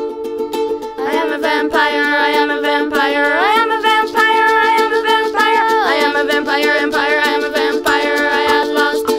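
Background music: a plucked string accompaniment strummed in a steady rhythm, with a gliding lead melody coming in about a second in.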